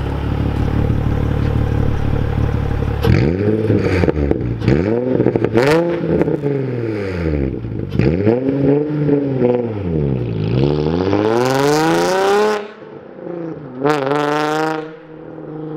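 Nissan 350Z's VQ35 V6 through Megan Racing test pipes (catalytic converters removed) and a Tomei exhaust. It idles for about three seconds, then is revved hard as the car pulls away, the pitch climbing and falling again and again. Near the end it fades as the car heads off, with one last rising rev.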